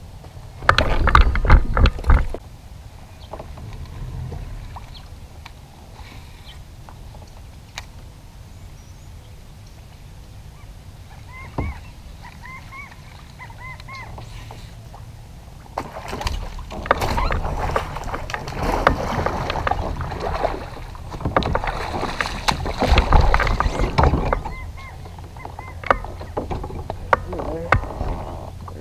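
Water splashing around a kayak as a hooked largemouth bass is fought to the side and lifted aboard: a loud burst about a second in, then a longer spell of splashing from about halfway to near the end. A few short bird calls come in between.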